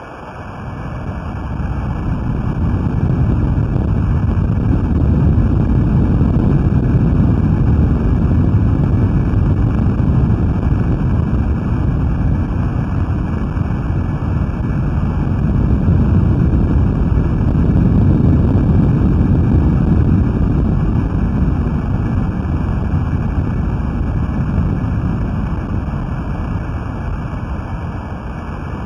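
A magnitude 9.0 earthquake recorded underwater by a hydrophone and sped up 16 times: a loud, deep, continuous rumble that builds over the first few seconds, then holds with slow swells and dips.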